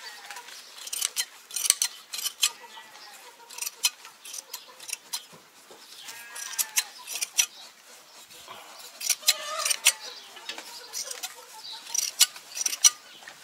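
Hand sheep shears snipping through a sheep's fleece: irregular sharp metal clicks, often several in quick succession.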